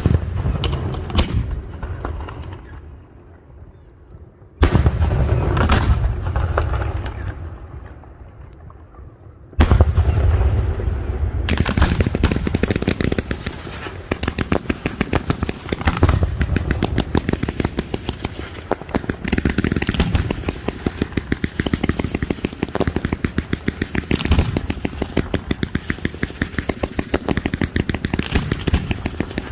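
Castillo fireworks: three big firework bursts with booms that rumble away, at the start, about five seconds in and about ten seconds in. From about twelve seconds a continuous dense barrage of rapid bangs and crackles follows.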